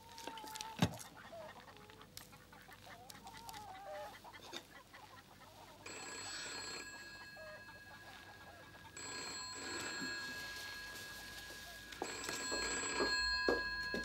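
Hens clucking in the first few seconds, then an old black telephone's bell ringing in three long rings through the second half.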